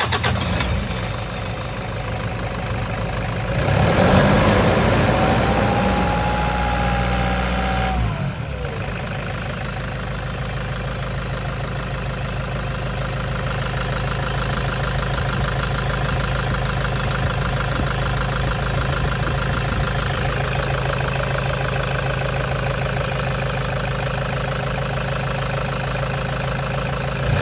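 2011 Toyota Hilux's 3.0 L four-cylinder turbo-diesel (1KD-FTV D-4D) running. About four seconds in it is revved once, with a rising whine. The revs drop back sharply at about eight seconds, and it then idles steadily.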